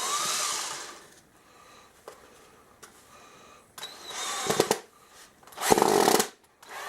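Vintage Milwaukee 12-volt cordless drill motor running in short bursts: a whine that winds down within the first second, another brief run about four seconds in, and a louder, rougher burst near six seconds.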